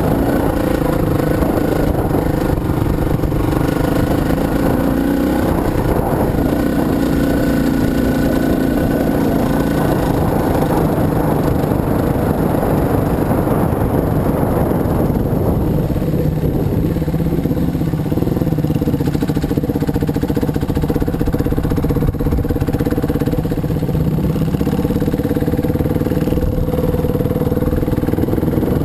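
Dirt bike engine running under way. Its note rises and falls with the throttle over roughly the first half, then holds steadier.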